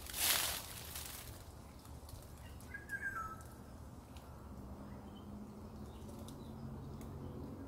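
A loud rustle of dry leaves at the start, then a wild bird's short chirping call about three seconds in, with a few fainter chirps later. A low steady hum comes in about halfway.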